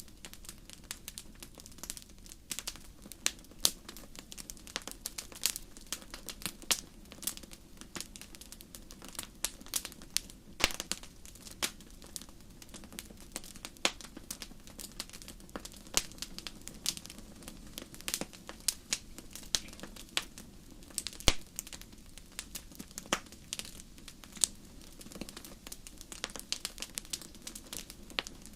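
Wood campfire crackling: irregular sharp pops and snaps, a few much louder than the rest, over a steady low rush of burning.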